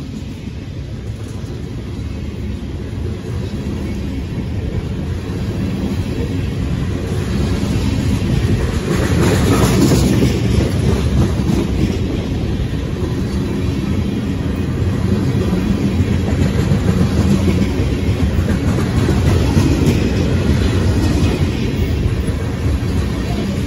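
Ethanol tank cars of a CSX freight train rolling past close by: a steady low rumble and clatter of steel wheels on the rails, growing louder over the first ten seconds and then holding.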